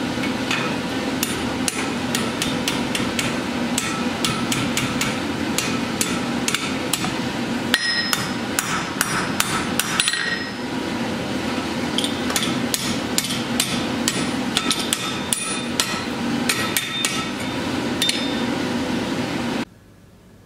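Blacksmith's hammer striking hot steel on an anvil in quick, steady blows, several a second, some blows ringing briefly, over a steady rushing background noise. The hammering and the noise cut off abruptly near the end.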